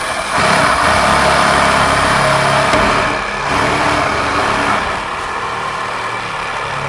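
A loud motor running steadily, engine-like, a little quieter from about five seconds in.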